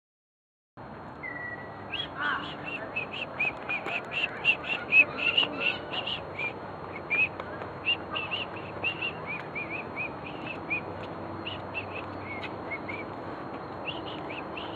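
Birds chirping: many short, high calls in quick succession over a steady background noise, starting about a second in and busiest in the first half.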